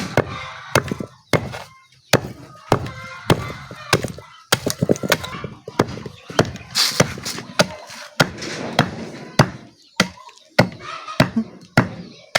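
Lumps of charcoal being pounded by hand, a steady rhythm of dull strikes at about three every two seconds, crushing them toward powder.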